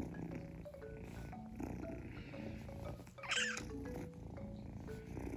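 Two-month-old Munchkin kitten purring while its head is stroked, with one short high mew about three seconds in. Light background music of short, stepping notes plays throughout.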